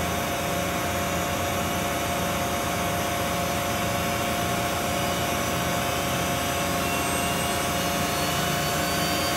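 Mazak Integrex 300-IIIS CNC lathe spindle running with a steady whine and machine hum, being ramped up in speed again, its whine rising in pitch in the last couple of seconds.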